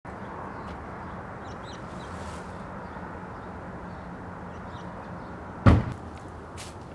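Steady low hum of room tone, then a single loud thump about five and a half seconds in, followed by a few faint clicks.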